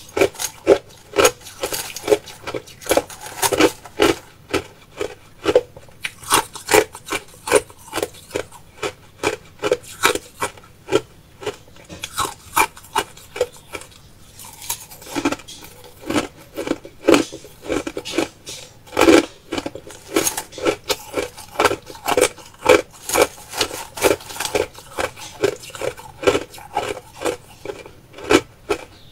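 Crushed ice crunched between the teeth close to the microphone, in quick crisp bites about two to three a second, with a brief pause near the middle.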